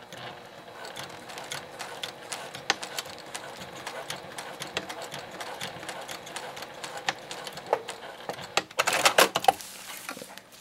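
Juki sewing machine stitching through grosgrain webbing and silpoly tarp fabric, a rapid, steady clatter of needle strokes. Near the end the stitching stops and there is a short, louder rustle as the nylon tarp is shifted.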